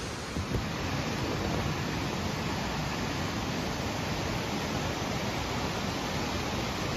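Swollen river rushing steadily through rocky pools and narrow canyons, running fast and strong with rainy-season water.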